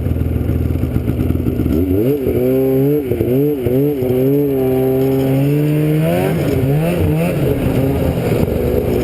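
A vehicle engine running under way: a steady low drone for about two seconds, then its pitch rises and falls several times as the throttle is opened and eased, holds high for a while, and settles lower near the end.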